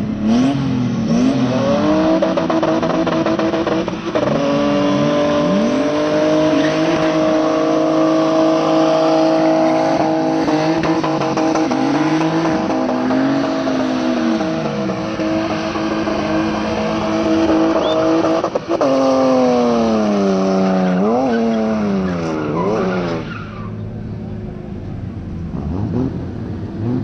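A drift car's engine is held at steady high revs while its tyres squeal as it slides. Around two-thirds of the way through the revs drop and are blipped up and down several times, then the noise eases off near the end.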